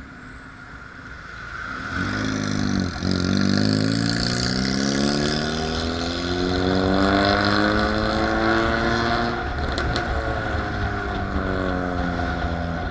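Vehicle engine accelerating. Its note climbs slowly for several seconds, with a short dip about three seconds in and a drop past the middle, typical of gear changes, then holds steady.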